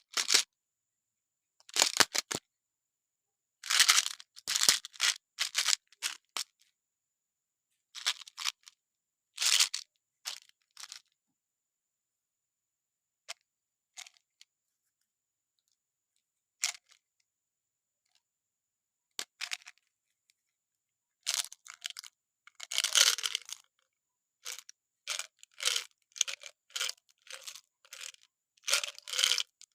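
Candy wrappers and packaging being torn open and crinkled in short, separate bursts, with complete silence between them.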